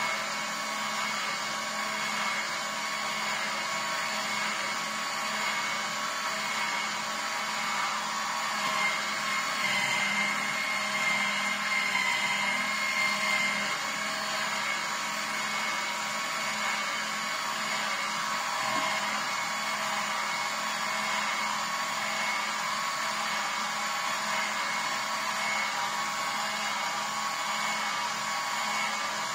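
Vertical slow juicer running steadily as its auger presses pineapple chunks: a constant motor hum with a few held tones, a little louder for a few seconds around the middle.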